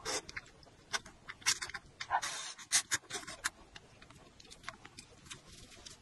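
Instant noodles slurped from a bowl of broth in a series of short, wet sucking bursts, bunched in the first three and a half seconds and sparser after.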